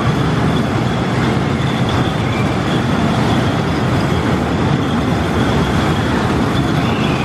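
Steady, loud running noise of a Whip amusement ride with its cars in motion, heard from a rider's seat.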